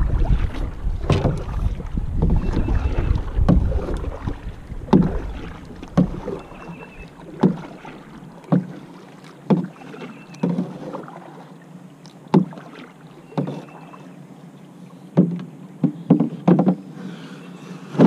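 Canoe being paddled with an aluminium-shafted paddle: a short, sharp stroke sound about once a second as the paddle works the water and meets the hull. Wind rumbles on the microphone for the first six seconds, then dies away.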